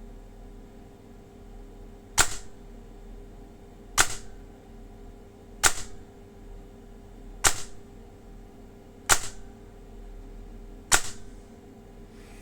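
Airsoft electric gun with an 18:1 DSG gearbox and brushless motor firing six single semi-auto shots, each a sharp crack of the gearbox cycling and piston slamming, spaced about two seconds apart.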